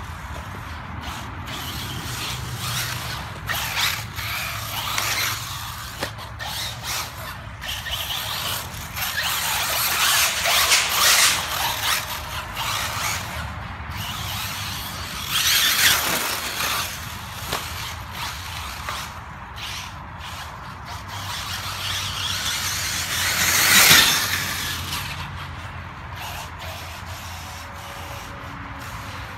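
Kyosho Inferno MP9e electric 1/8-scale four-wheel-drive RC buggy driving laps on a dirt track. Its motor and gear drivetrain whine, swelling louder and fading several times as the buggy comes near and moves away, loudest about three-quarters of the way through.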